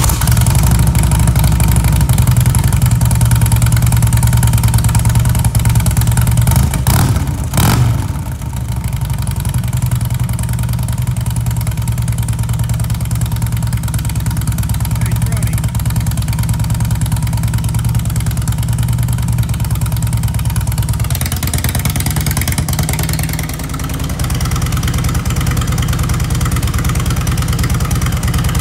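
Harley-Davidson Electra Glide's V-twin engine idling through a Shark Road 4-inch slip-on muffler, just after starting. There is a short burst about seven seconds in, after which it settles to a slightly quieter idle.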